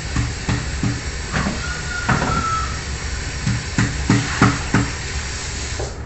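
Kitchen tap running steadily into a sink while metal pots and a plastic bowl are rinsed, knocking and clattering against each other and the sink about a dozen times, with a short ringing tone about two seconds in.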